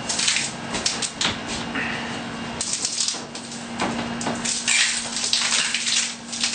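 Hands pressing and rubbing a shower wall panel flat against the wall, pushing it back onto its silicone adhesive so it sticks: an irregular run of scuffs, rubs and light taps.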